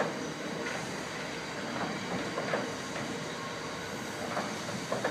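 Freight train hopper wagons rolling across an old iron-arched railway bridge: a steady rumble with irregular short knocks from the wheels.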